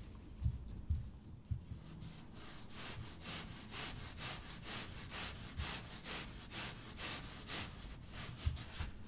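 Hands shaping a round of scone dough on a flour-dusted wooden board, cupping and pressing its edges: quick repeated rubbing strokes of skin on floury dough, with a few soft thumps near the start and end.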